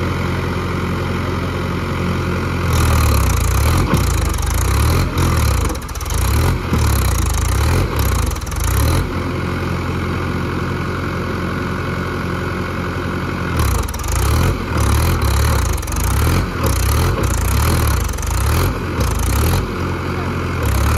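Mahindra 575 DI tractor's four-cylinder diesel engine running, steady and idle-like at first and again midway, with long stretches of louder, uneven running in between and toward the end.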